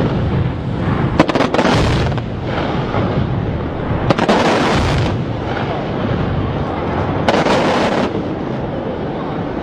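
Daytime smoke fireworks going off in rapid volleys: a continuous rumble of launches and bursts, with sharper cracks about a second in, about four seconds in and again after seven seconds.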